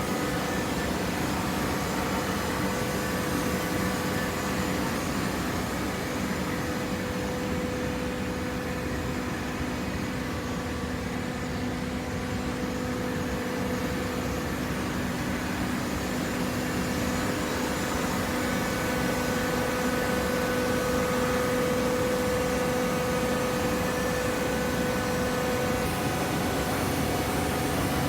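Hydraulic cardboard baler running: a steady machine hum from its motor and hydraulic pump, with a couple of held tones, growing a little louder about two-thirds of the way through.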